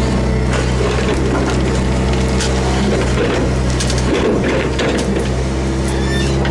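Hydraulic excavator's diesel engine running steadily, heard from inside the operator's cab, while the bucket dumps soil into a dump truck bed. Clatter and rattling from the falling earth and the working machine run over the engine for the first few seconds.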